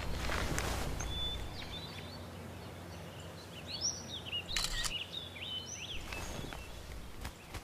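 Birds chirping in short, quick calls through the middle of the stretch over steady outdoor background noise. About the first second and a half holds a soft rustle with a low rumble, as the fur of a bear costume brushes against a man's clothing in a hug, and a few light knocks come later.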